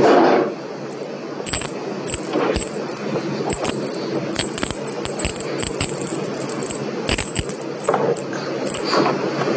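Small bells on a feather wand cat toy jingling and clinking in quick, irregular clicks as the wand is waved and bumped about.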